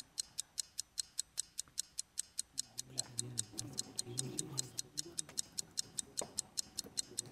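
Quiz-show countdown timer sound effect: an even, fast ticking, several ticks a second. A team member talks quietly over it in the middle.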